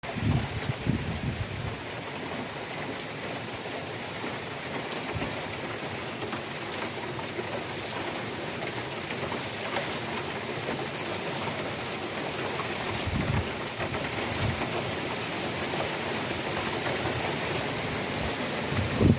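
Heavy rain falling steadily, with many individual drops ticking on nearby surfaces and a few brief low rumbles, near the start and about two-thirds of the way through.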